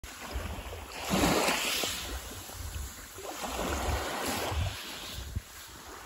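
Small waves washing onto a fine-pebble shore, with two washes of surf hiss: the louder one about a second in, the second around the middle. Wind rumbles on the microphone underneath.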